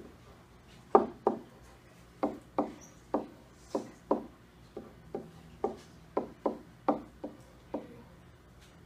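A series of about sixteen sharp knocks on something hard, many coming in quick pairs and spaced irregularly over several seconds.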